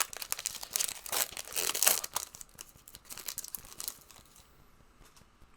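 Trading card pack wrappers crinkling and tearing as packs are opened and the cards handled, a rapid run of crackles that dies down about four seconds in.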